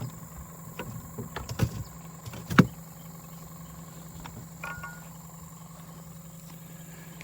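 A steady low hum with scattered clicks and knocks in the first few seconds, the loudest sharp knock about two and a half seconds in, and a brief faint beep near the middle.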